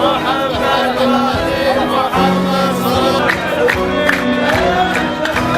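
Music with several voices singing together over a steady, sharp percussive beat that becomes prominent about halfway through.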